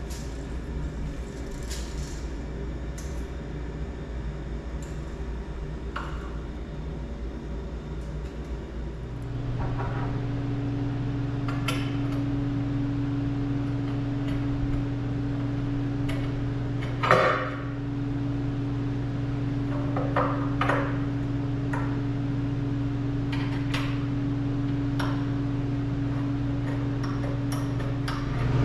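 Steel pipe and pipe fittings clinking and knocking as a pipe crossbar is fitted between steel table legs, with one louder ringing clank about two-thirds of the way through. A steady low hum starts about nine seconds in and runs on under the clinks.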